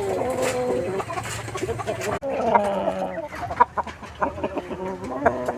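Chickens clucking, a stream of short, repeated calls.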